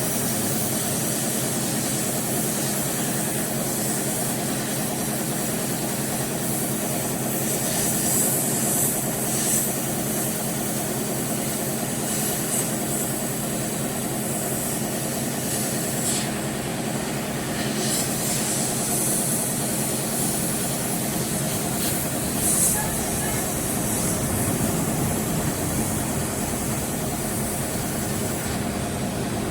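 Steady machine hum with a hiss over it, unchanging, with a few faint clicks now and then.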